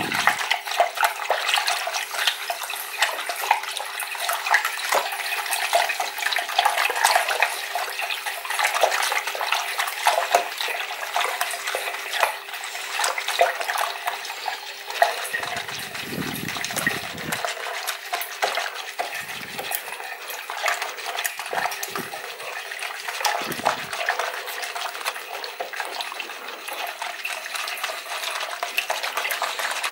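Red silicone-coated wire whisk beating a thin custard mix of egg yolks, milk, sugar and cornflour in a bowl: continuous fast sloshing and light clicking of the whisk against the bowl, with a few dull low bumps past the middle.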